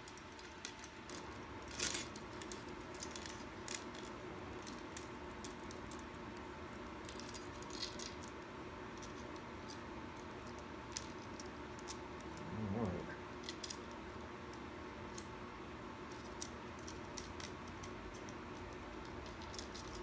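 Loose 3/8-pitch saw chain clinking and rattling now and then as it is handled, with sharp metal clicks about two seconds in and again a little before the fourteen-second mark. A short hum from a person partway through, over a faint steady room hum.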